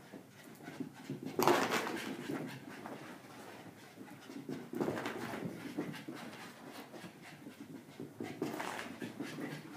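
Two small dogs playing chase, panting and scrambling over carpet and a blanket-covered couch, with louder bouts of scuffling about a second and a half in, around five seconds in, and near the end.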